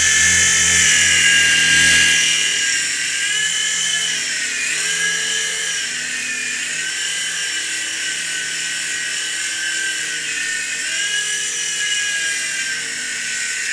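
Small coaxial-rotor RC toy helicopter flying: its electric motors and rotors give a high, drill-like whine whose pitch dips and rises several times as the throttle changes.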